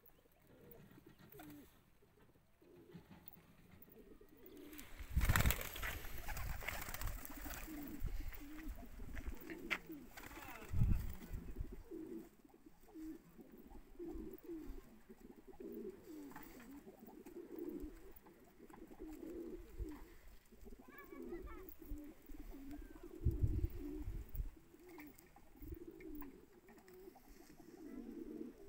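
A flock of domestic pigeons cooing over and over, low throaty calls that keep overlapping and grow busier in the second half. Three loud low rumbles break in, about five, eleven and twenty-three seconds in.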